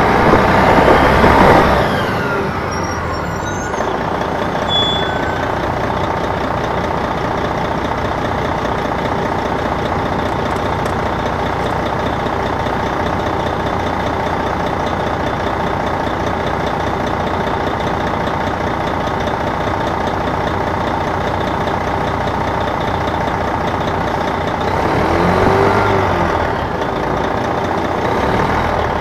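A 2002 MCI D4000 coach's Detroit Diesel Series 60 engine running under way, heard from the rear of the bus. The engine pitch sweeps down and back up in the first two seconds, stays steady for a long stretch, then rises and falls again about 25 seconds in.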